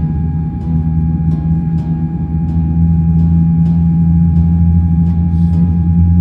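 Cabin noise of a Boeing 787-9 taxiing: a steady low rumble with a steady whine over it, and light ticks about twice a second.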